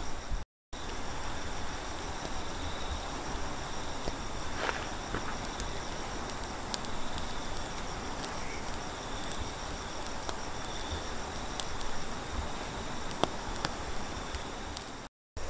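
Night insects chirring in steady high-pitched bands over a constant rushing background, with a few sharp crackles from the charcoal cooking fire. The sound drops out briefly near the start and again near the end.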